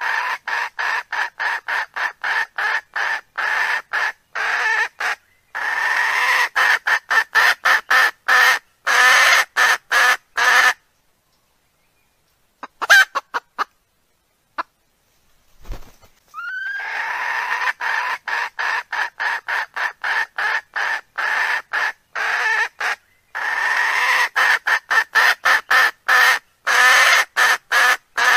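Recorded hen cackling: long runs of rapid clucks, a few a second and speeding up, broken by a pause of several seconds with only a few stray notes, after which the same run of clucks starts over.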